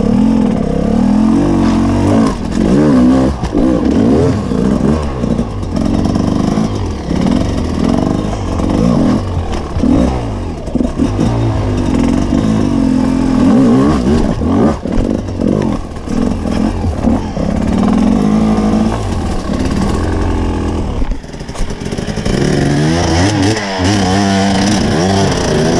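Two-stroke enduro dirt bike engine being ridden, revving up and down continuously as the rider works the throttle.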